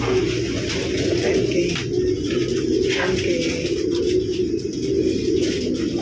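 Many racing pigeons cooing at once in their loft cages, an unbroken, overlapping chorus of low coos.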